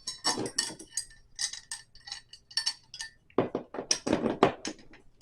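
Small metal furniture hardware clinking and rattling as it is handled, in an irregular run of sharp clinks with a metallic ring. A cluster of heavier knocks comes about three and a half to four and a half seconds in.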